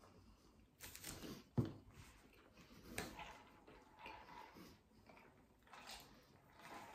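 Faint eating and handling noises: chewing, a burger set down on its paper wrapper with a soft thump about one and a half seconds in, then a paper fountain-drink cup picked up and sipped through its straw.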